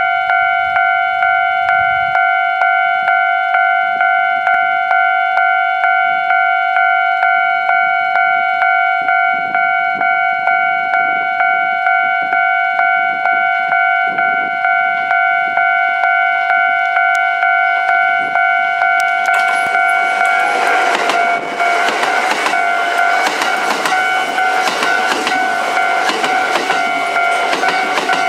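Japanese level crossing warning bell dinging in a steady repeating rhythm. From about 20 seconds in, the noise of a Kintetsu limited express train passing over the crossing joins it: wheels running over the rail joints, continuing under the bell.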